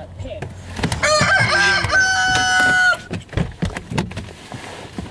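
A rooster crowing once, a cock-a-doodle-doo about two seconds long whose last note is held and then cut off sharply. It is followed by a few short knocks over a low hum.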